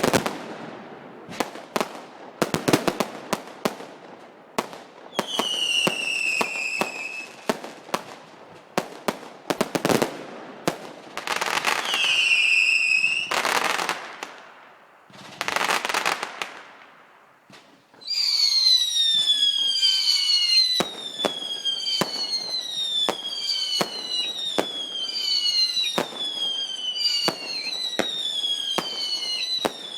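Fireworks display: a run of sharp bangs and crackling, with a falling whistle about five seconds in and another around twelve seconds. After a brief lull, from about eighteen seconds on, comes a rapid string of overlapping falling whistles, roughly one a second, among continued bangs.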